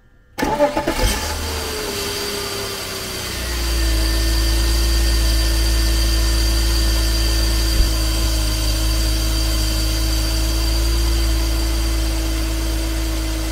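A BMW E46 330i's 3.0-litre straight-six starting up about half a second in and settling to a steady idle. A tone in its hum slides down over the first few seconds, and about three and a half seconds in the sound grows louder and deeper. The engine is idling with the coolant expansion tank uncapped, to bleed air out of a freshly refilled cooling system.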